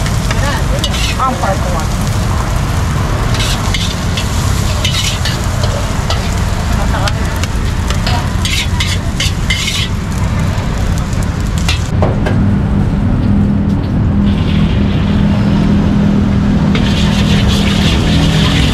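Metal wok spatula scraping and clanking against a carbon-steel wok as fried rice is scooped out and onto a plate, over a steady low rumble. Near the end, fresh egg sizzling in the hot wok as it is stirred.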